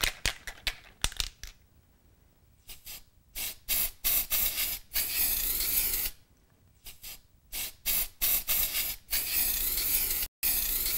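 Aerosol can of PME gold luster spray hissing in a run of short bursts, then in longer sprays of a second or more near the middle and the end.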